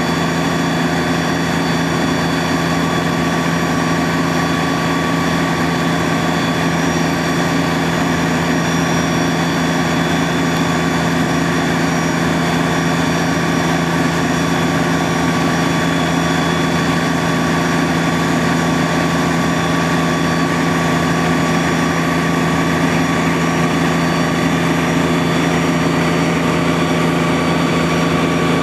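Fire engine's motor running steadily at raised revs to drive its fire pump during a pump test: a loud, even drone with a few high, steady whining tones over it and no change in pitch.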